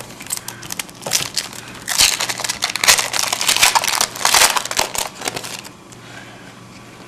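Trading-card pack wrapper crinkling and crumpling as it is torn open and handled, loudest for about three seconds in the middle, then settling to lighter rustling.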